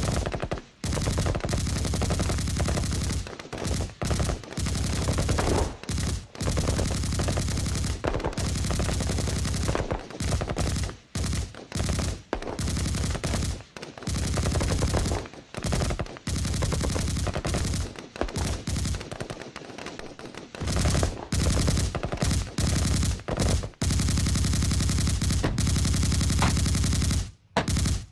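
Machine gun firing in long rapid bursts, broken by short pauses between bursts.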